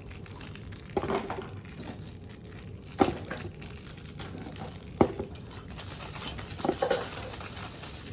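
Fidget toys being handled: crinkling and rustling with a few sharp plastic-like knocks, about one every two seconds, and a rougher clatter near the end.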